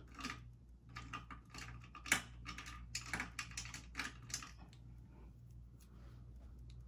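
A quick, uneven run of light clicks and taps from small hard objects being handled, lasting about four and a half seconds, then fading to faint rustling.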